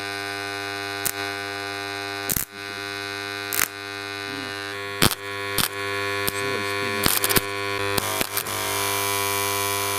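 Microwave oven transformer, rewound with a few turns of thick wire for very high current, humming steadily under load with many overtones of the mains frequency. Sharp clicks and crackles break in about a dozen times, typical of arcing contacts on the high-current wire. The hum drops out briefly about two and a half seconds in.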